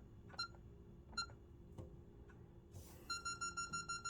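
Security alarm keypad beeping its warning tones while the system is still not disarmed: single short beeps spaced about a second apart, then a fast run of rapid beeps about three seconds in.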